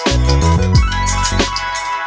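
Background music: an electronic track with a kick drum, fast hi-hat ticks and a bass line that steps through several notes.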